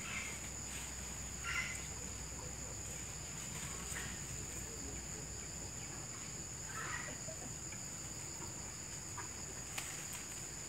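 A steady, high-pitched insect drone. A few brief rustles of leaves come as a grazing cow pulls at the vines.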